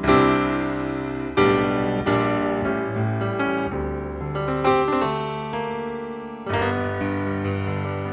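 Slow solo piano music: chords struck every second or two and left to ring and fade.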